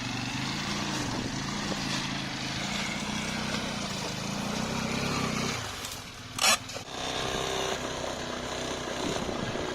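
Motorcycle engine running steadily, heard up close. Its sound drops a little over five seconds in, and a brief, loud burst comes about six and a half seconds in. The engine then runs on at a changed pitch.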